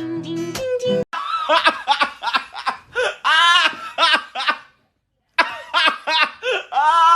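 A person laughing hard in a run of short, pitched bursts, with a brief pause in the middle. The tail of a guitar-and-singing song is heard for about the first second.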